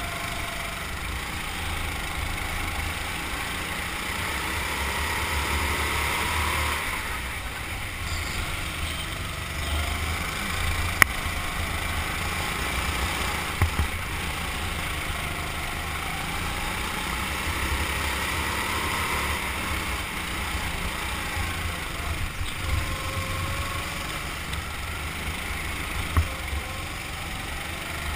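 Indoor racing go-kart running at speed on the track, its engine pitch rising and falling over a few seconds at a time, over a steady low rumble. A few short sharp clicks cut in, the loudest about eleven seconds in.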